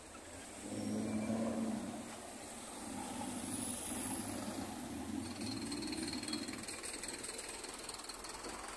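Road traffic on a city street: a vehicle passing close by, louder from about a second in, over a steady traffic rumble, with a thin high whine joining from about five seconds in.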